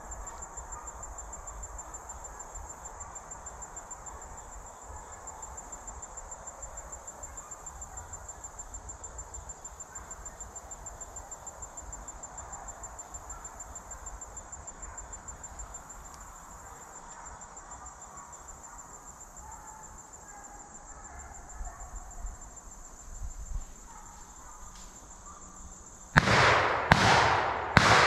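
Insects trilling steadily with a fast, even pulse, then near the end three loud shotgun blasts about a second apart, each trailing off in an echo: a hunter firing buckshot at a running buck.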